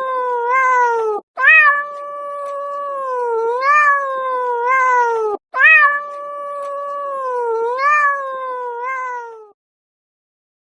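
A domestic cat yowling in long, drawn-out calls, each held on a steady pitch with repeated upward swells, broken by two short breaths about one and five seconds in. It stops near the end.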